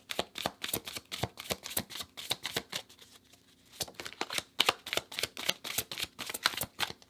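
Everyday Witch Tarot cards being shuffled by hand: a quick run of sharp card clicks, easing off briefly about three seconds in before picking up again.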